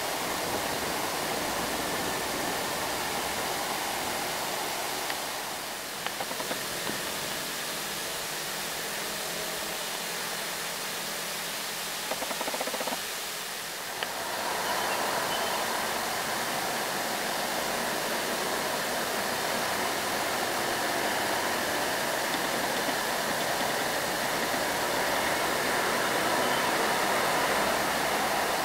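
Road traffic noise from loaded trucks and motorbikes on a mountain road: a steady rushing hiss with no clear engine note, dipping briefly twice.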